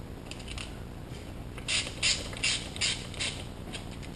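Trigger spray bottle squirting water in quick pumps: a few faint ones at first, then a run of about six strong squirts, roughly three a second, each a short hiss with the click of the trigger, while tint film is wetted.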